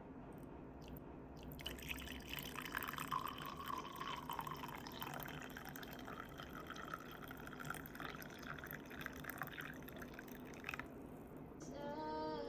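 Water running and dripping, a dense fine crackle that starts about a second and a half in and stops shortly before the end.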